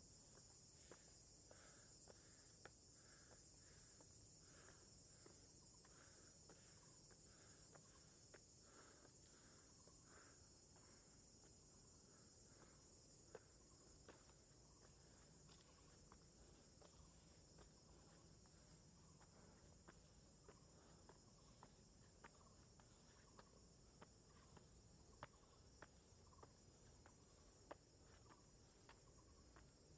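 Faint, steady, high-pitched chorus of insects in summer forest, with quick footsteps on a stone trail, about two steps a second, through the first half.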